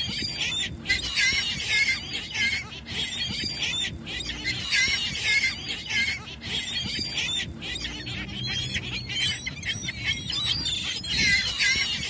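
A flock of gulls calling, with many short high calls overlapping one another in repeated clusters.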